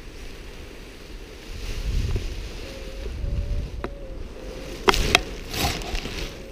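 Wind buffeting the microphone in gusts on an open hillside. Near the end come a few sharp knocks and clicks, the loudest of them about five seconds in.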